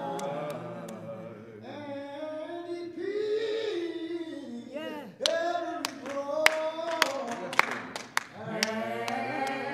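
Voices singing unaccompanied, with hand claps joining in from about halfway for around three seconds.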